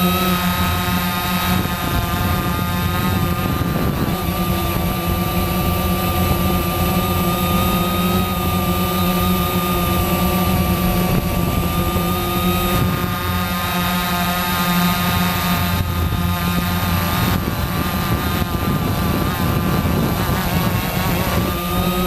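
Quanum Nova quadcopter's electric motors and propellers whining steadily in flight, the pitch wavering slightly up and down as the throttle changes.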